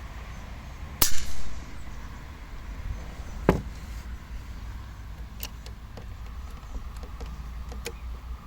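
RTI Prophet II PCP air rifle dry-fired without a pellet: a loud crack with a short ringing tail about a second in, then a second, shorter sharp crack about two and a half seconds later. Its report is much louder than the moderated LCS SK-19's.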